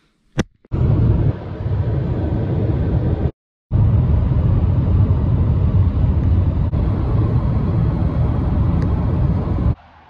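Road and wind noise inside a moving car: a loud, steady low rumble with a hiss above it, broken by a short silence about three and a half seconds in. It starts with a click and drops away to a quiet hiss near the end.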